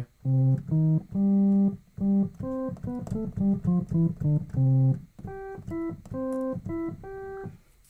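Homemade additive synthesizer playing a melody of about fifteen short notes from a keyboard. Each note is a steady, organ-like tone built from only its first six harmonics: 1 and 2 full, 3 and 4 at half, 6 at a third, none on 5. This is a first try at a cello-like patch, with no envelope, so each note starts and stops abruptly.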